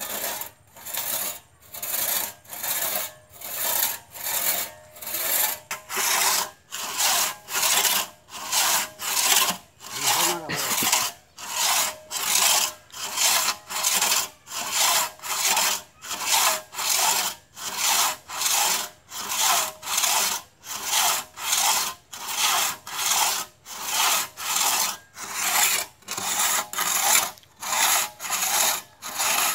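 Two-man crosscut saw cutting across a felled tree trunk, pulled back and forth by a man at each end: steady rasping strokes, about three every two seconds.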